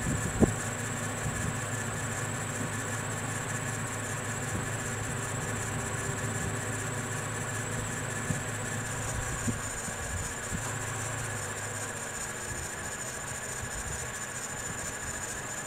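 2010 Toyota Tacoma's 2.7-litre four-cylinder engine idling with the air conditioning on, a steady high-pitched squeal from the accessory belt running along with it. A small knock comes about half a second in, and the low engine hum eases off about twelve seconds in.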